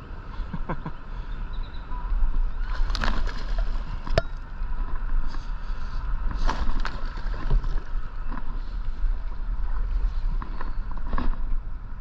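Water sloshing and splashing around a kayak while a hooked bass is fought close to the boat, with a few sharper splashes about three, six and a half and eleven seconds in, over a steady low rumble.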